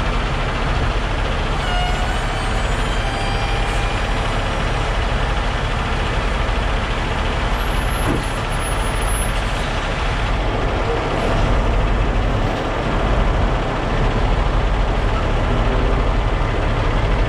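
Heavy diesel truck engines running steadily, a deep continuous rumble, from the rotator wreckers and tractor-trailer holding and positioning a lifted excavator.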